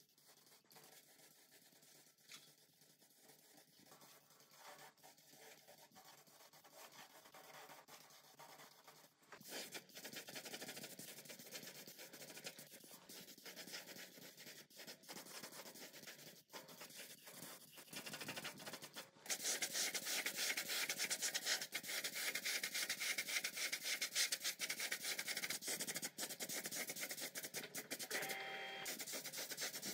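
Air paint spray gun hissing as it sprays paint onto the parts, in several takes, faint at first and much louder from about two-thirds of the way in.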